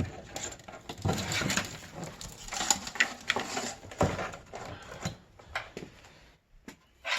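Irregular clicks, knocks and rustling of computer parts and case panels being handled. The sharpest knocks come about one, three and four seconds in, and it goes quieter near the end.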